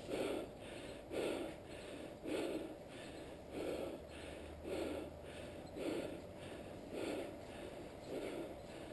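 A person breathing steadily and audibly, about one breath sound a second.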